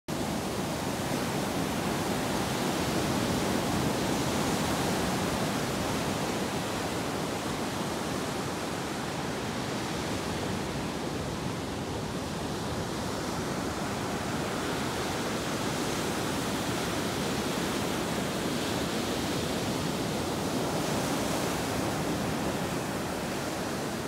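Pacific Ocean surf breaking and washing up a sandy beach: a steady rushing hiss that swells gently now and then.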